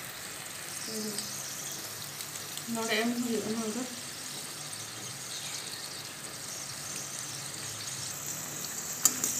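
Steady sizzling hiss of liquid bubbling hard in a hot steel pan on the stove.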